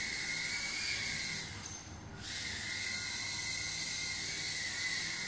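FPV micro drone's small motors and propellers in flight, a steady high-pitched whine over a hiss, which drops away briefly about two seconds in before picking up again.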